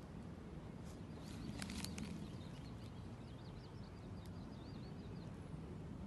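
Stream water running with a steady low rush, while a small bird sings a rapid, wavering warble for about four seconds starting about a second in, with a few sharp ticks near its start.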